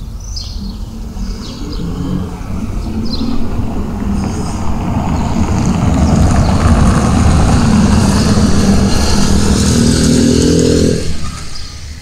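A motor vehicle's engine passing close by on the street, growing louder over several seconds and then dropping away sharply about eleven seconds in.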